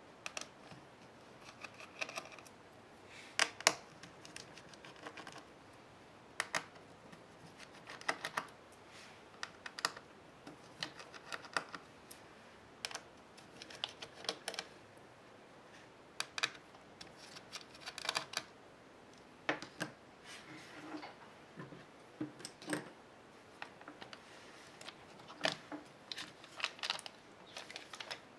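Irregular small clicks and light taps of hands working inside an opened VIZIO CT15 laptop: plastic and metal parts being handled and unclipped, with the battery pack lifted out near the end.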